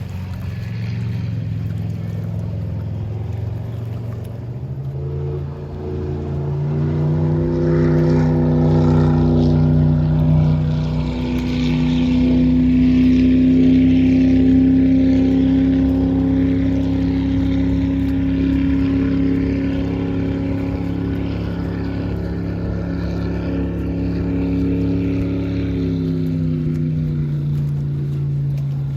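MerCruiser 496 Mag 8.1-litre V8 of a Baja 232 speedboat running. The revs climb about five seconds in, hold steady, then drop back near the end.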